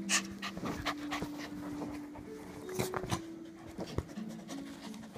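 Dogs play-fighting: low play growls held for a second or more, with panting and several sharp snaps and scuffles.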